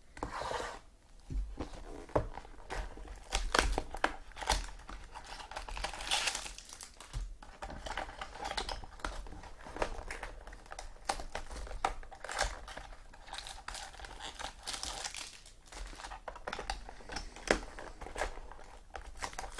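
Trading card pack wrappers crinkling and tearing open, an irregular run of crackles and clicks.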